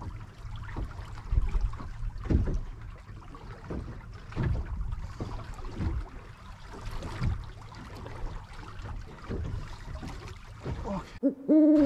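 Sea water slapping against the hull of a small boat, with a low thump every second or two.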